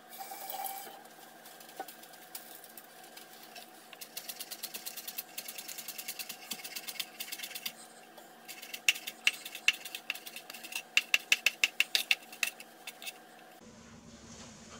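Chef's knife chopping leafy herbs on a cutting board: rapid, even taps of the blade on the board, about six a second, in two runs with a short pause between.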